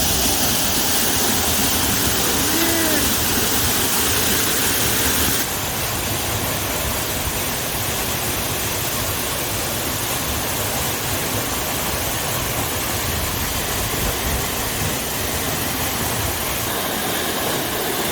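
Waterfall: a steady rush of falling water, with no change in pitch and a slight step down in level about five seconds in.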